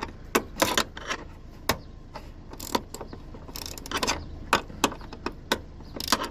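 Irregular metal clicks, knocks and short scraping rattles of hands working at a tight gas boot strut's end fitting on a 2003 Suzuki Alto's tailgate, trying to pull it free.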